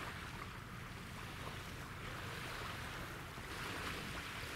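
Steady wind and small waves washing, swelling and easing slowly, over a low rumble.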